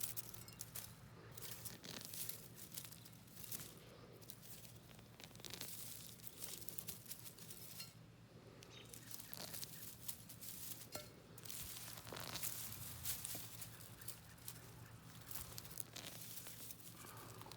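Hands pulling garlic plants from loose soil: soft, scattered rustling and crinkling of dry leaves and stems with small scratches of soil.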